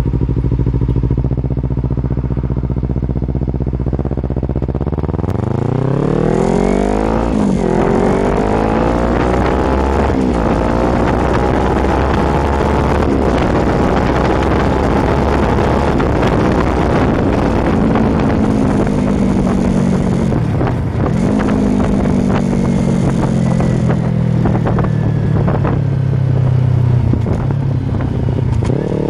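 Kawasaki Ninja 250 FI parallel-twin engine through an Akrapovic slip-on exhaust, heard close to the muffler. It runs at low, steady revs for a few seconds, then revs up hard with the pitch climbing and dropping sharply twice as it shifts up, then holds a steadier cruise with the pitch slowly easing off.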